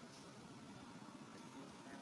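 Near silence: faint, steady background noise with no distinct event.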